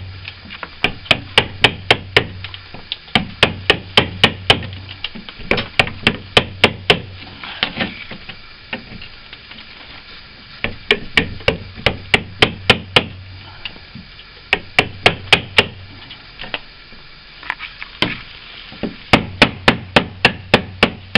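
Hammer blows driving a blade tool to chip old, rock-hard window putty out of a timber sash, about three sharp knocks a second in runs of several with short pauses. The putty is gripping the cheap timber like cement.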